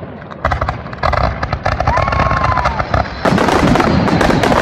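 Fireworks going off close overhead: a rapid string of sharp cracks and pops that builds, a little past three seconds in, into a dense continuous crackle.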